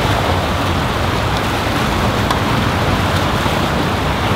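Water pouring over a low concrete weir in a canal and churning in the pool below: a loud, steady rush.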